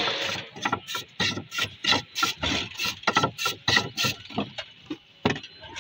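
Block of ice scraped back and forth over a hand ice-shaving blade set in a wooden board, shaving ice. The scraping strokes come rapidly, about four a second, and thin out near the end.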